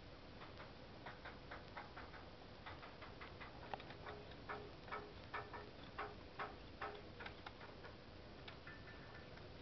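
Faint, irregular sharp clicks, roughly two a second, several carrying a brief low note, over a faint steady hum; they begin about half a second in and stop about a second before the end.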